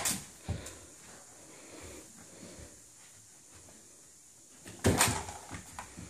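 Dull thumps of a small toy football hitting the wall and carpeted floor: one at the start, then a short cluster of thumps and bounces about five seconds in.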